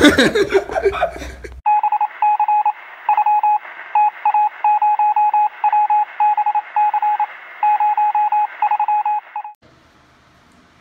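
Morse-code-style beeping, as heard over a radio: a single mid-pitched tone keyed on and off in short and long beeps over a thin hiss. It starts about a second and a half in and cuts off suddenly about a second before the end.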